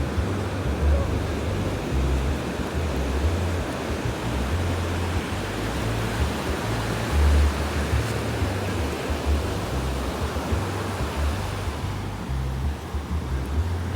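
Ocean surf washing ashore, with wind buffeting the microphone in uneven low rumbles.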